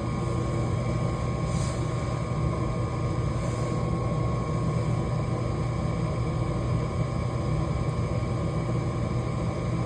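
Coleman gas furnace's draft inducer motor running with a steady low hum and a faint whine, at the start of an ignition trial.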